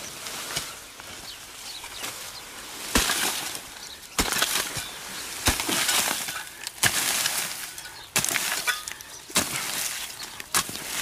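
A hand hoe chopping into dry earth and straw, digging out a hole. After a few seconds of light rustling, the blade starts striking about once every second and a quarter, seven blows in all, each followed by a scrape and the rustle of dry straw and soil.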